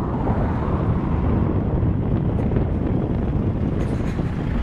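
Wind buffeting the microphone: a steady, loud, low rumbling noise.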